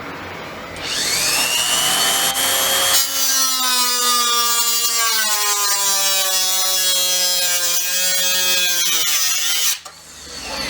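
A handheld power tool spins up with a rising whine, then cuts into the car's sheet-metal fender. Its pitch sags slowly under the load, and it stops suddenly near the end.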